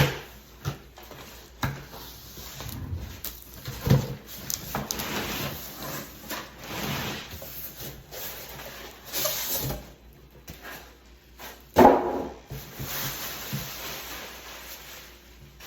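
Handling noises: a run of knocks, clicks and rustling, the loudest a sharp knock about twelve seconds in.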